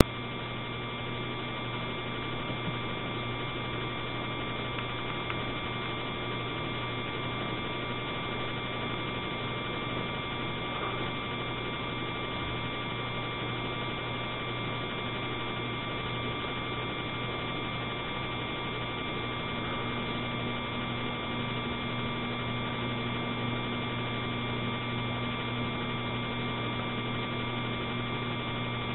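Steady electrical hum with a hiss, with no other sounds on top of it; a second, higher hum tone joins about two-thirds of the way through.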